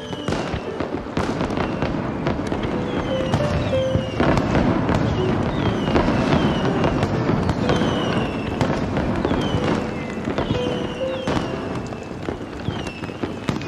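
Fireworks display: repeated bangs and crackling, with falling whistles, over background music.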